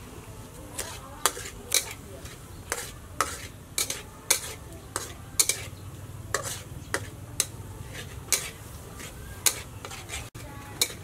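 Metal spatula stirring and scraping in a wok of sizzling oil, with sharp irregular clinks against the pan about once or twice a second.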